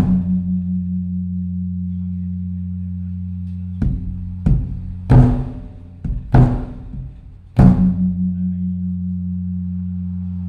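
Large Thai temple drum (klong laeng) beaten in a slow signal pattern: a heavy strike that leaves a long low ringing hum, then a run of about five strikes and another long ring. It is beaten to announce the eve of the Buddhist holy day.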